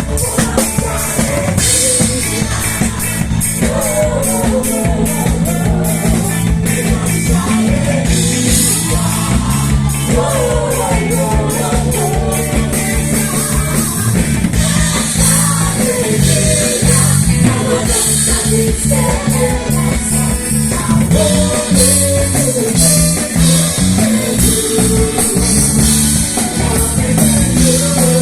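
Live gospel band music: a drum kit keeping a steady beat under a bass line, with a singing voice carrying the melody.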